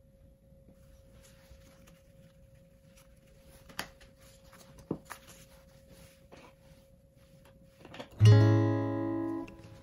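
Acoustic guitar music: a strummed chord rings out loudly about eight seconds in, and another follows right at the end. Before it, only faint rustling of paper and oil pastel, with two soft taps.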